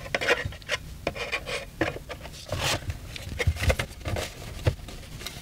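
Handling noise of a small laser engraver being assembled: the stand slid and fitted onto the engraver's housing, with rubbing and scraping, a run of short clicks and knocks, and a few low thumps about three and a half seconds in.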